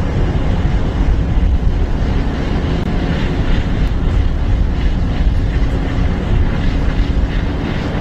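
Astra Rocket 3.3's first-stage engines burning in flight: a steady, noisy low rumble.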